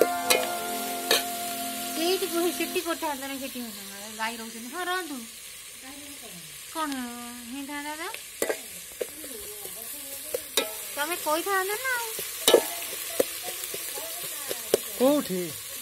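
Metal spatula stirring and scraping sliced onions frying in a steel pot, with sharp clicks of metal on metal over a light sizzle. Steady-toned music ends about three seconds in, and after that wavering pitched calls rise and fall in the background.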